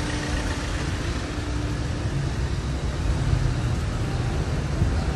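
Steady low rumble of an open golf cart driving along city streets, with traffic noise around it.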